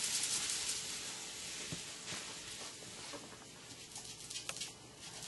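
Ink blending tool rubbed over cardstock: a soft, hissy scrubbing that fades over the first few seconds, with a couple of light clicks later on.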